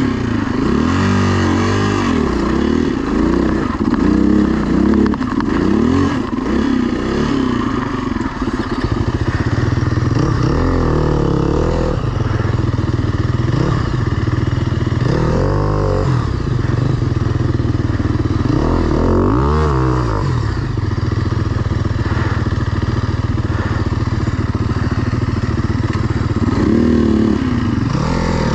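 Enduro motorcycle engine, an HM Locusta, revving up and down over and over as it is ridden slowly over rough trail terrain, with the throttle opened in short bursts several times.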